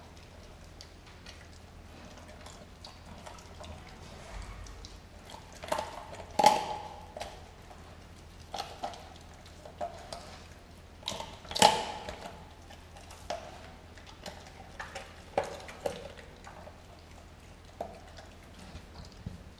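Doberman chewing and pulling at a whole raw turkey: wet, irregular mouthing and tearing sounds with scattered small clicks, and two louder sharp sounds about six and twelve seconds in.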